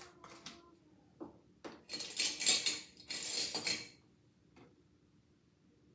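Soy sauce bottle and metal measuring spoon being handled: a few light clicks and taps, then two short, loud rasping scrapes about two and three seconds in.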